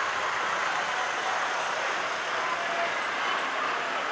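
Street traffic: a car and a motor scooter moving slowly through an intersection, a steady noisy din with no single event standing out.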